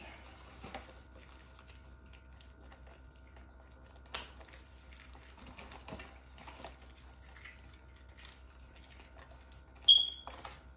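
Small clicks and rattles of a purse's metal strap hardware being handled while the straps are clipped on, with a sharp click about four seconds in and a louder metallic snap with a brief ringing tone near the end as a clasp catches.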